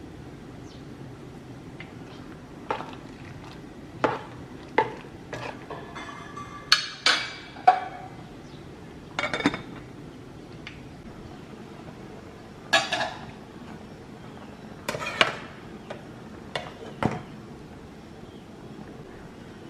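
Kitchen utensils and dishes clinking and clattering against pots and bowls in irregular, sharp knocks, some in quick clusters of two or three, over a steady low hiss.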